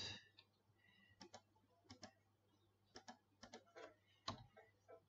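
Faint, irregular clicks of a computer mouse and keyboard, a scattering of single taps with the sharpest a little past four seconds in.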